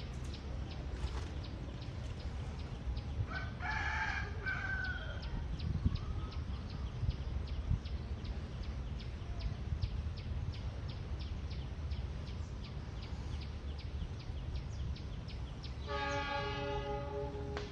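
A rooster crows once, about three seconds in. Near the end a diesel locomotive's horn sounds, a steady chord of several notes. Under both runs a steady low rumble and a faint regular ticking about three times a second.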